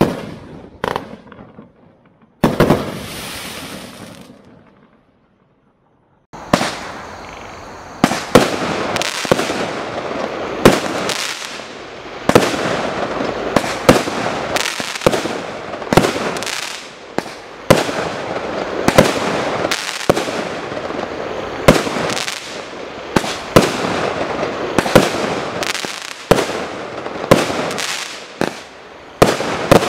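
Consumer 1.3G firework barrage cakes firing. The last shots of one cake end in a bang and a fading hiss, then about two seconds of total silence, then a 19-shot barrage cake fires shot after shot, one or two sharp bangs a second, each with a tail that dies away.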